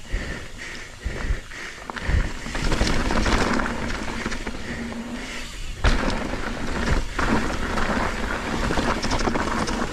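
Mountain bike riding along a dirt trail: tyres rolling over dirt and roots with knocks and rattles from the bike, over a steady low rumble of air rushing past the microphone.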